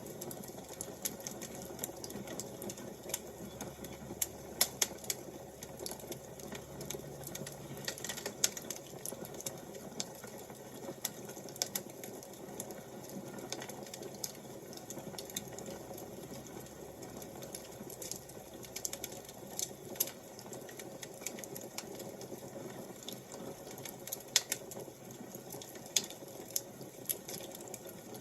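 Wood fire crackling: irregular sharp pops and snaps over a steady low rushing hiss.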